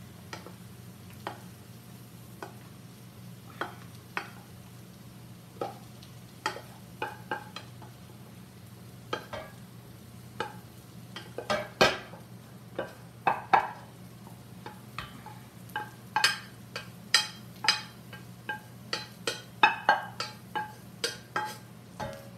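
Cooking utensil scraping and clicking against pans as cooked brown rice is scooped out of a stainless saucepan and stirred into a hot frying pan, with a light sizzle. The strokes are scattered at first and come thick and fast from about halfway through, over a steady low hum.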